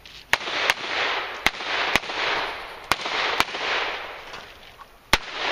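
Handgun shots fired during a USPSA practical-shooting stage, coming in quick pairs about half a second apart: three pairs, then one more shot near the end. Each shot is followed by a short echo.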